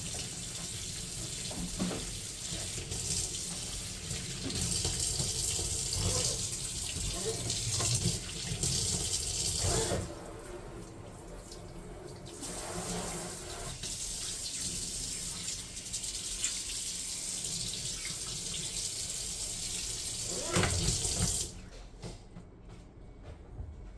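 Kitchen tap running into a sink while dishes are rinsed, with scattered knocks and clinks of dishes. The flow drops away about ten seconds in, comes back a couple of seconds later, and is shut off suddenly near the end.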